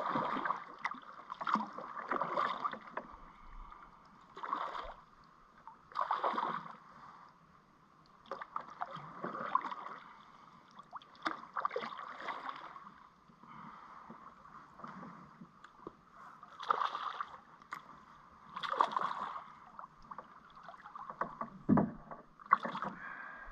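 Water splashing around a kayak in short, irregular bursts a second or two apart.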